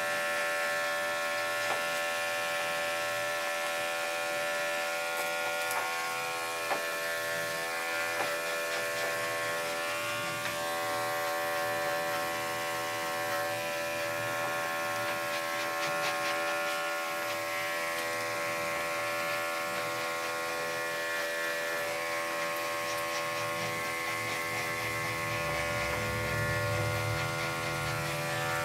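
Electric dog grooming clippers fitted with a #40 blade, running with a steady buzz as they shave hair from a dog's leg and paw.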